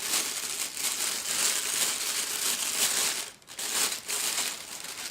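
Plastic packaging crinkling and rustling continuously as it is handled and pulled open, with two brief pauses near the end before it stops suddenly.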